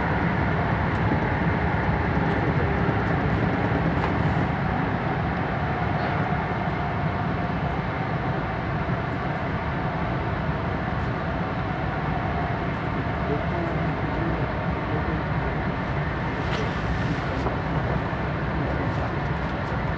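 Cabin running noise of an E4 series double-decker Shinkansen from the upper deck: a steady rumble and hiss of the train at speed. It eases slightly a few seconds in as the train slows for a station stop.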